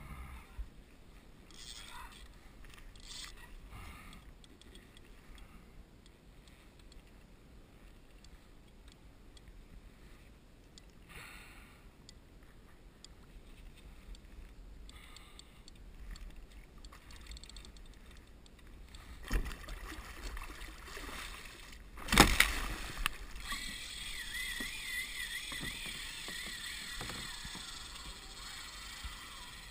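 Sounds aboard a kayak on the water: faint low rumble with scattered light knocks, a thump, then a loud sharp knock about two-thirds of the way through. A wavering high tone follows for a few seconds.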